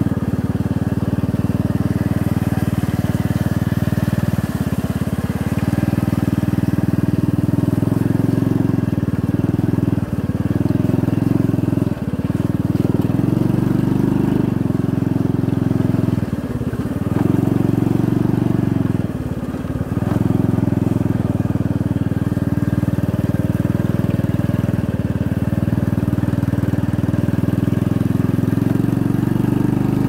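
Motorcycle engine running steadily under way on a rough dirt track. Its note dips briefly twice a little past the middle.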